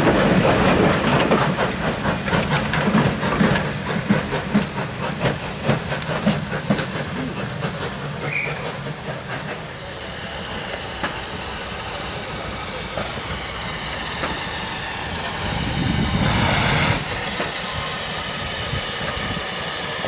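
A steam-hauled train of vintage carriages rolls past, its wheels clattering over rail joints and pointwork. About halfway through this gives way to the steady hiss of a steam tank locomotive drifting slowly in, with a brief louder rush of steam near the end.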